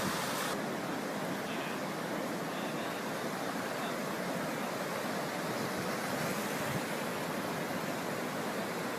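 Floodwater rushing steadily, an even roar of fast-moving water.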